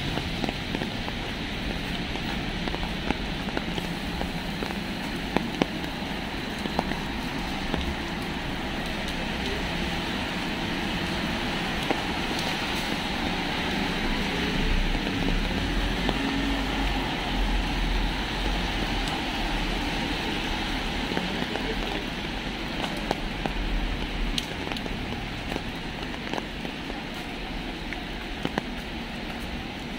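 Steady rain falling on a city street, a hiss with many small drop clicks. A low traffic rumble swells for several seconds in the middle.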